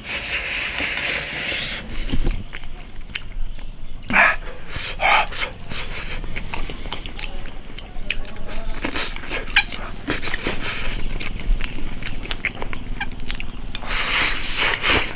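A man eating noisily with chopsticks from a bowl of potatoes and cured pork over rice: chewing and lip smacking, with sucking mouth noises near the start and near the end and scattered clicks.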